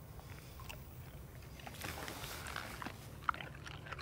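Faint chewing and small mouth clicks of someone eating, scattered through the second half, over a low steady hum.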